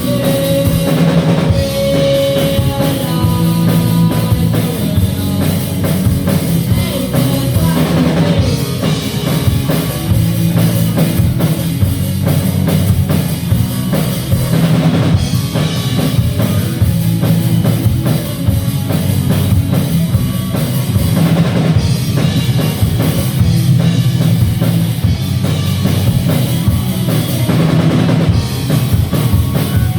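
A rock band playing live: drum kit, bass and electric guitar in a dense, steady mix.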